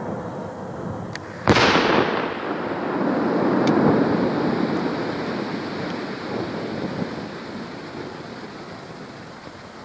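A 125 mm aerial shell bursting about a second and a half in: a single sharp bang that rolls on into a long rumbling echo and slowly fades. The shell is a 1994 strobe shell whose aged break charge the uploader calls a little weak.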